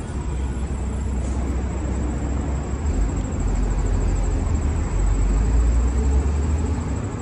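Low rumble of passing vehicles in city traffic, growing louder toward a peak about five seconds in, then easing.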